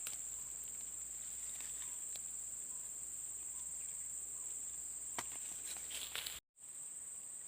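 Steady high-pitched insect chorus, an unbroken drone, with a few faint clicks near the end. It cuts out completely for a moment about six and a half seconds in, then resumes.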